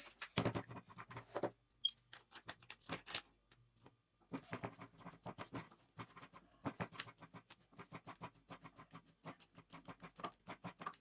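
Quick, irregular light taps and scratches, several a second, with short pauses about two and four seconds in; no power tool is running.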